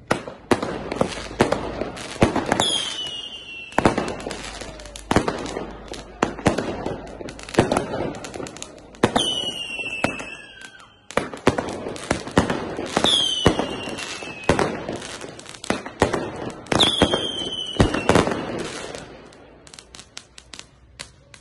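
Firecrackers going off in a rapid series of sharp bangs and crackles, with four whistling fireworks, each a falling whistle about a second long. The bangs thin out and grow quieter near the end.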